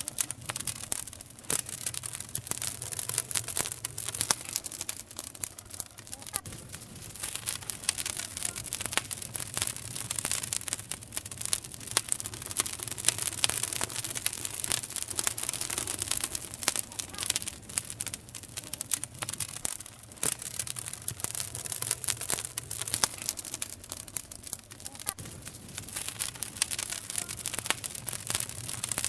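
Wood campfire crackling, with many quick irregular snaps and pops.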